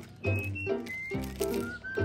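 Background music: an upbeat tune with a steady bass beat and a high melody line that slides between notes.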